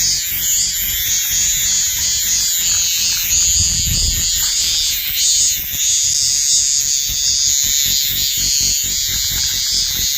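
A dense chorus of calling animals, frogs among them: a continuous high buzzing trill with a fast pulsing beneath it.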